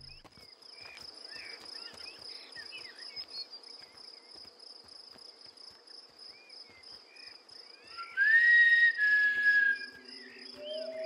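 Night insects, crickets trilling steadily in a pulsing chirr, with scattered short chirps. About eight seconds in, a loud breathy whistle sounds: one long note of nearly two seconds that rises, holds, then steps down a little.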